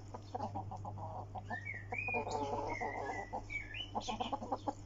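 Domestic hens clucking softly, with a run of short high chirps from about one and a half seconds in.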